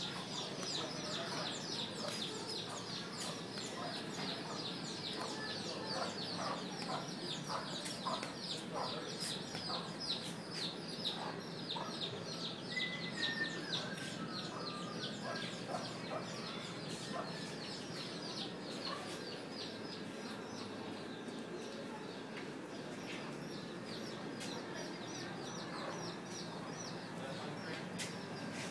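Chicks peeping in a fast, continuous run of short high notes, with hens clucking now and then. The peeping thins out after about the middle.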